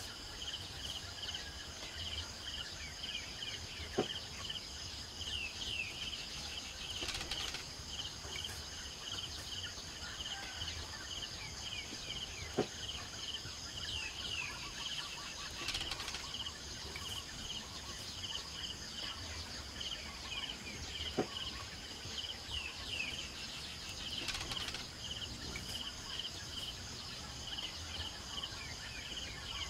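A steady, evenly pulsing insect chorus with short bird chirps over it, broken by three single sharp knocks spaced several seconds apart.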